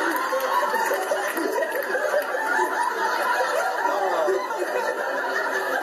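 A man laughing hard, heard through a television's speaker and recorded off the screen by a phone, so it sounds thin.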